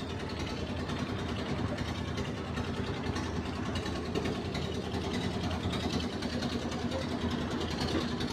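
A steady mechanical hum like an engine running at an even idle, with no change in pitch or level.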